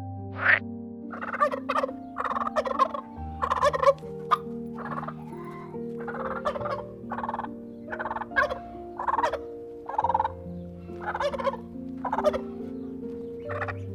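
A domestic fowl calling again and again, about fourteen short calls roughly one a second. Underneath is soft background music of held notes.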